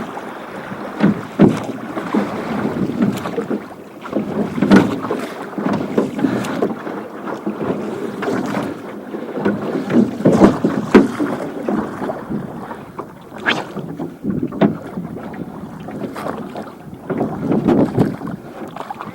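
Small boat being rowed with oars: irregular splashes and knocks every second or two, with wind buffeting the microphone.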